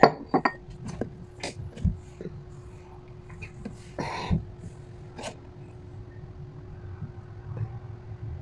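Scattered small clicks and knocks of things being handled on a tabletop, with a short breathy rustle about four seconds in, over a faint steady hum.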